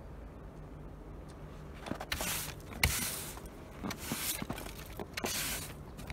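Snow brush sweeping loose snow off a car roof: four swishing strokes, starting about two seconds in, with a sharp knock near the third second.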